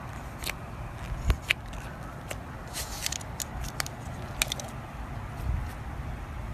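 Slime being worked by hand, giving off irregular small clicks and crackles over a low rumble, with a cluster of quick clicks in the middle.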